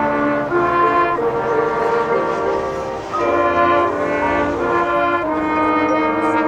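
Marching band brass playing sustained chords, with the harmony shifting to a new chord that swells in about three seconds in.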